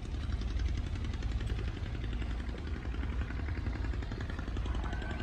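An engine running steadily with a fast, even pulse over a deep rumble.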